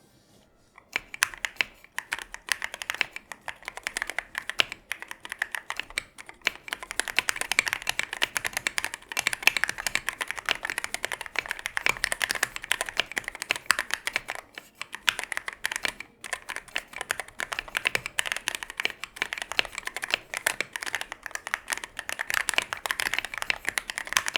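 Typing on a Tofu 65 mechanical keyboard fitted with stock, unlubed Akko CS Jelly White linear switches and XDA-profile keycaps: rapid, continuous keystroke clacks starting about a second in, with a few brief pauses.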